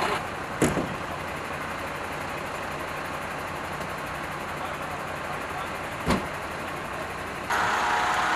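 Vehicle engines idling steadily under street noise, broken by two sharp knocks, one about half a second in and one about six seconds in. Near the end a louder, brighter steady hum takes over.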